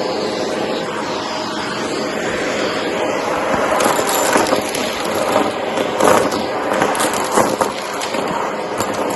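Shark vacuum cleaner running steadily, with a crackling clatter of cardboard bits being sucked up from about four to eight seconds in.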